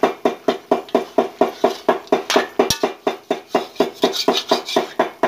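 Slotted steel ladle clanking against the side of a large steel kadai as curry is stirred: a quick, even run of about five strikes a second, each with a short metallic ring.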